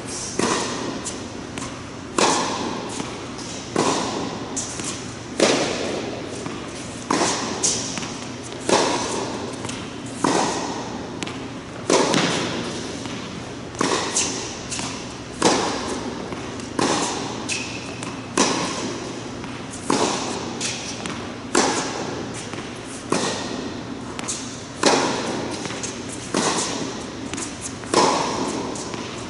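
Tennis ball struck hard by rackets in a cross-court forehand rally, a sharp hit about every second and a half, each ringing out in the echo of an indoor tennis hall.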